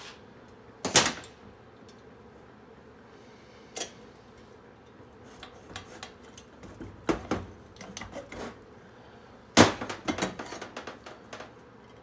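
Scattered knocks and metallic clatter from handling parts and tools at a workbench, with sharp strikes about a second in and again near the end, and lighter rattling between.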